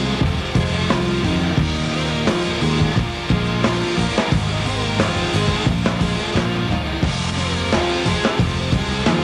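Rock music with a drum kit keeping a steady beat under guitars.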